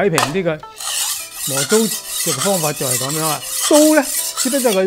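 The steel blade of a Chinese chef's knife (cai dao), held flat, is rubbed back and forth across a whetstone. It makes a steady scraping noise that starts just under a second in and runs nearly to the end.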